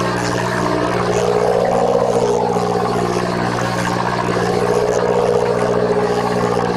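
A fishing boat's engine running with a steady low drone of several even tones, unchanging throughout.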